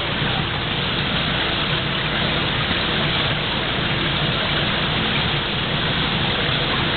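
Steady rushing of running water in a seawater tank, an even splashing hiss with no breaks.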